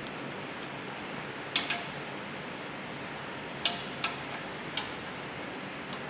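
About six sharp metal clicks and clinks, some in close pairs, as a spanner works a bolt on a lathe's apron, over a steady hiss.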